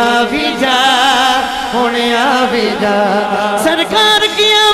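A man singing a Punjabi naat into a microphone, a drawn-out wordless vocal line with wavering pitch and ornaments.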